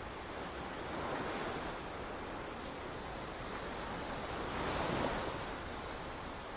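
Ocean waves washing in, a steady rush of surf that swells about a second in and again around five seconds.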